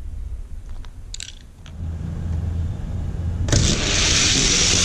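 Die-cast Hot Wheels cars rolling fast down plastic track: a loud rushing rattle begins with a click about three and a half seconds in. Before it, a few light clicks over a steady low hum.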